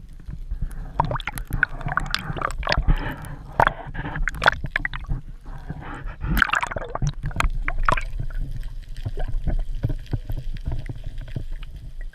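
Water splashing and dripping, with many small irregular clicks and wet knocks over a low rumble.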